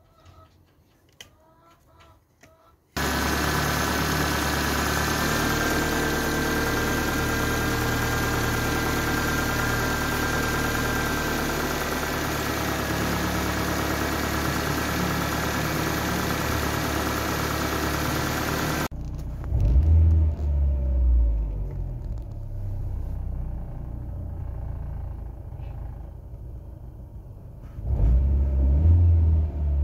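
Peugeot 206 engine running during a test of its rebuilt oil pump. It cuts in suddenly about three seconds in, runs steadily, then drops abruptly to a quieter, lower rumble, with loud low surges soon after and again near the end.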